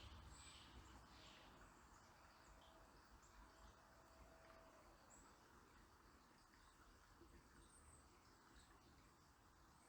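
Near silence: a faint, even hiss of outdoor ambience with a few soft, high bird chirps, most of them in the first second or so.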